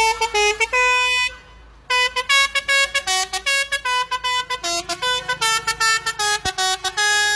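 A truck's musical air horn playing a tune of short, loud notes at several pitches in quick runs, with a brief pause about a second and a half in.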